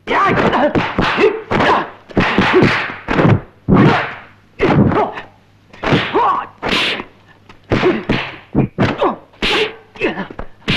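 A rapid run of dubbed martial-arts punch and kick impacts and swishing whooshes, about a dozen loud hits one after another.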